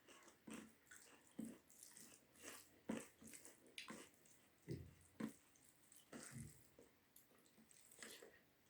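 Faint wet chewing and mouth sounds of someone eating rice with dal in big bites, close to the microphone: irregular soft smacks, squelches and clicks, with a couple of duller thumps in the middle.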